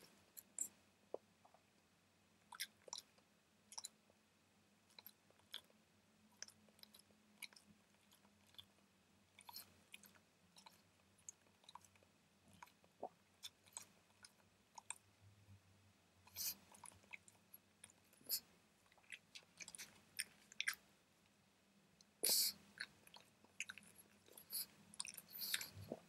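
A pug licking and nibbling at itself, heard as faint, scattered wet clicks and smacks, with a few denser runs and the loudest a little past three-quarters of the way through.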